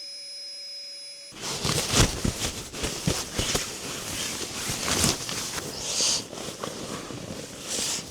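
A steady electronic-sounding tone with several pitches that cuts off about a second in. Then irregular rustling with knocks and clicks follows, like fabric and gear being handled.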